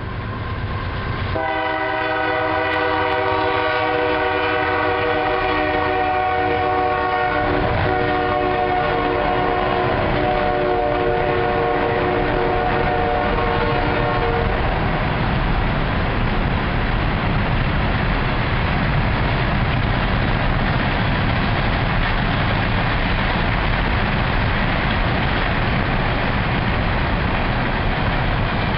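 Union Pacific GE AC4400CW (C44AC) locomotive's multi-note air horn sounding one long blast of about thirteen seconds, with a short break about six seconds in. It is followed by the steady rolling noise of the loaded coal train passing.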